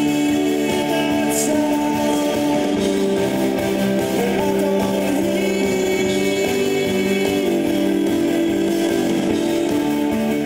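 Rock band playing slow rock with long held chords, guitar and a singing voice.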